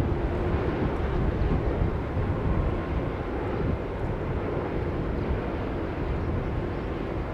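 Steady jet engine rumble from a Bombardier Global Express business jet's twin Rolls-Royce BR710 turbofans as it lands and touches down, easing slightly toward the end.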